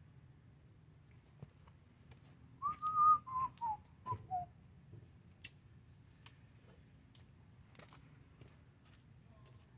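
A person whistling a short phrase of five or six notes that step downward in pitch, lasting about two seconds, a few seconds in. A few faint ticks and rustles follow.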